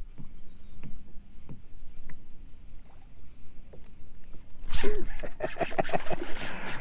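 Light knocks for a few seconds, then about five seconds in a sudden loud burst of rapid rattling and splashing: the commotion of a redfish just hooked beside a kayak.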